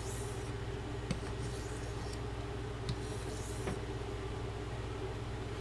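Carbon-steel knife blade stroked lightly along a soft Arkansas sharpening stone, a soft hiss with each stroke every couple of seconds and a few faint clicks, over a steady low background hum.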